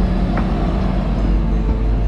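City street traffic with a bus engine running close by: a steady low rumble and hum.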